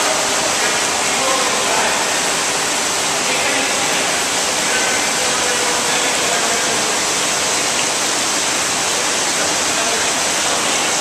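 Steady, loud rush of moving water from a large aquarium tank, with indistinct voices underneath.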